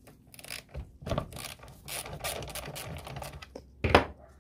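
Ratchet wrench clicking rapidly as bolts on a scooter are worked loose, with one loud sharp knock of metal near the end.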